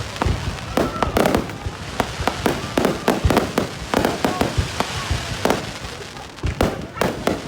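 Fireworks going off: a dense, irregular run of sharp bangs and crackles, several a second.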